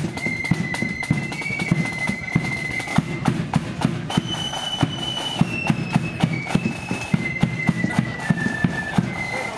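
Marching flute band playing a march tune in unison, the flutes carrying a single high melody over drums beating a steady, driving rhythm.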